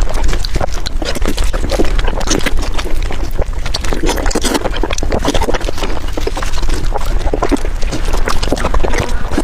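Close-miked eating of saucy braised beef ribs: wet chewing, smacking and sucking, a dense, irregular run of short mouth clicks.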